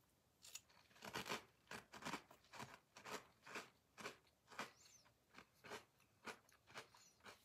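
A person chewing a mouthful of butter-fried honey nut toasted oat cereal: steady crunching, about two crunches a second.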